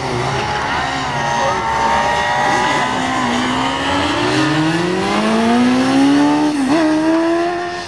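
Sport motorcycle engine on a drag strip, running at the line and then accelerating hard, its pitch climbing steadily from about three seconds in, with a brief dip near the end.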